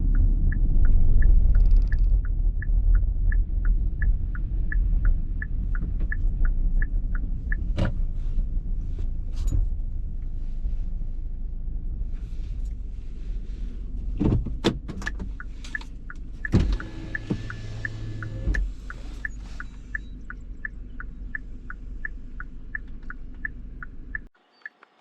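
Inside a vehicle: low engine and road rumble easing off, with the indicator flasher ticking steadily about three times a second. A power window motor runs for about two seconds past the middle, among a few scattered clicks. The rumble cuts off abruptly near the end while the ticking goes on.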